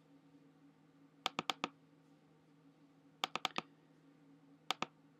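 Sharp plastic clicks at a computer in three quick groups: four, then five, then two. A faint steady hum runs underneath.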